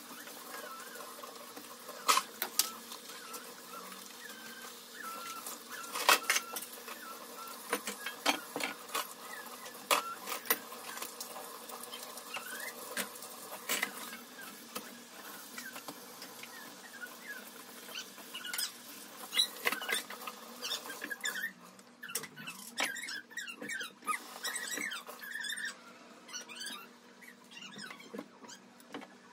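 Dishes and utensils clinking and knocking in a stainless steel sink under a running tap. About two-thirds of the way through the water stops and a damp cloth squeaks in short rubbing strokes as it wipes the sink and counter.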